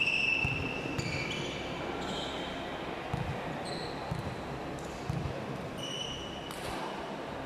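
Indoor court game: several short high squeaks, the loudest right at the start, with a few dull thuds of a ball or feet on the court floor, over the murmur of a hall.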